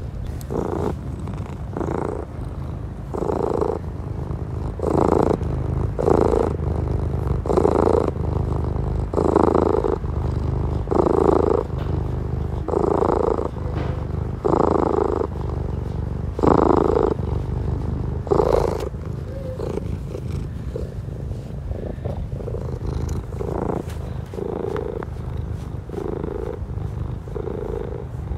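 Domestic cat purring close up: a continuous low rumble that swells with each breath, about every one and a half to two seconds. The swells grow fainter in the last third.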